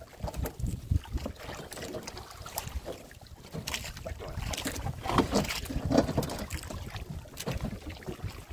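Irregular knocks and splashes as a wire-mesh fish trap is hauled out of the sea over the side of a small boat, with wind rumbling on the microphone.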